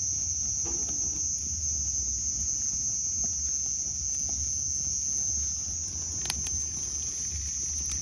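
Steady high chirring of night crickets, with faint crackles from a small wood-and-sack fire and one sharp snap about six seconds in.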